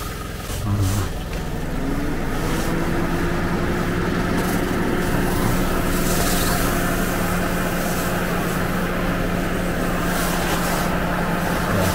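A motor running with a steady hum that settles into an even pitch about two seconds in. There are a few short handling knocks near the start.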